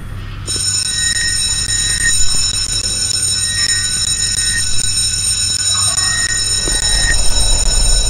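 Electric school alarm bell starts ringing suddenly about half a second in and keeps ringing steadily.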